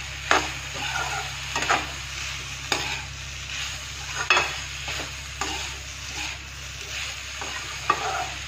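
Flat metal spatula scraping and turning potato and cauliflower pieces in a metal kadhai, with irregular sharp scrapes about once a second, loudest about four seconds in, over a steady sizzle of the vegetables frying.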